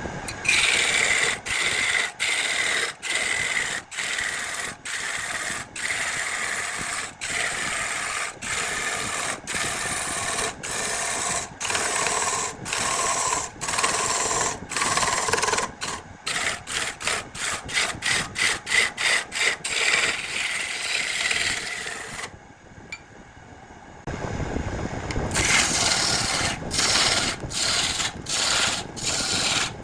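Jackfruit wood spinning on a woodturning lathe while a tool or abrasive works its surface: a steady rasping scrape broken by short gaps about every two-thirds of a second. It drops quieter for a couple of seconds about three-quarters of the way through, then resumes.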